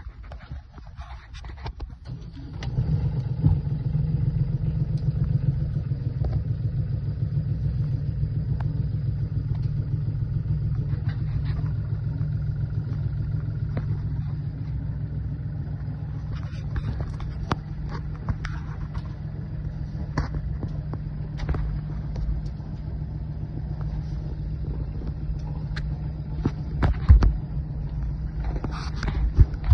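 A sailing yacht's 29 hp Volvo Penta inboard diesel engine starts about two and a half seconds in and then runs steadily. A few knocks come near the end.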